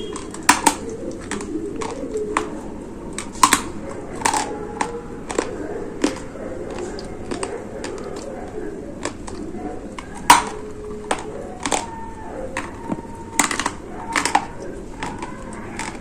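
Dry gray clay crunching and cracking as it is bitten and chewed: irregular sharp cracks, a dozen or more, the loudest about ten seconds in.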